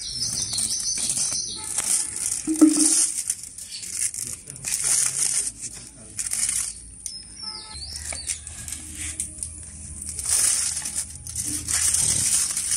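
Aluminium foil crinkling and crackling in short bursts, on and off, as it is peeled open by hand.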